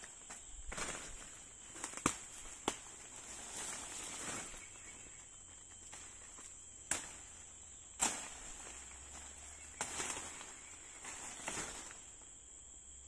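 Undergrowth being cleared by hand: several sharp, irregularly spaced knocks and cracks with rustling of branches and leaves, over a steady high-pitched drone of insects.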